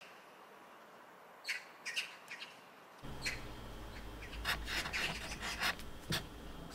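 Birds chirping in short, scattered calls, over a low steady background rumble that comes in about three seconds in.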